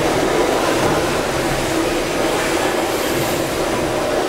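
Gimson Woolf compound steam beam engines running together, a steady dense mechanical noise with no distinct beat.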